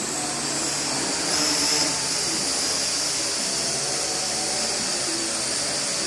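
Small quadcopter drone's four electric rotors whirring with a high whine, getting louder as it lifts off about a second and a half in, then holding steady as it hovers.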